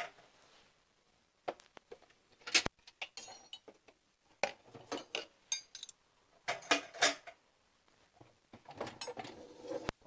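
Stainless steel kitchen utensils (ladles, a slotted skimmer, spoons) clinking and clattering together as they are taken out of a dishwasher rack: a string of sharp, irregular knocks, some with a brief metallic ring, starting about a second and a half in.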